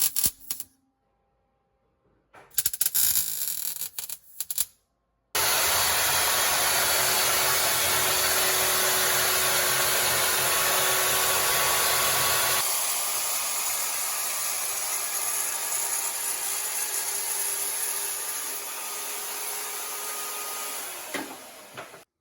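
A power tool in a metal fabrication shop running steadily with a harsh, even hiss for about 17 seconds, its lower tone dropping off about halfway through, after two short bursts of clattering noise at the start.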